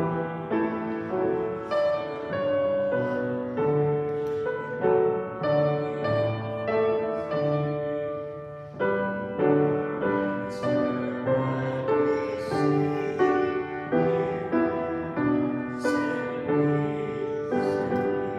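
Instrumental music on a keyboard instrument: a steady run of chords in a hymn-like style, changing about every half second to second.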